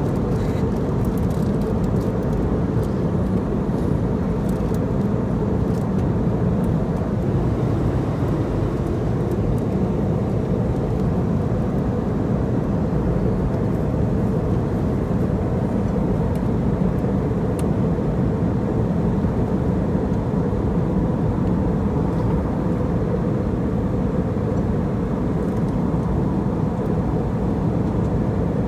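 Steady cabin noise of a passenger airliner in flight: an even low rush of engine and airflow with a faint steady hum, and a few light ticks in the first several seconds.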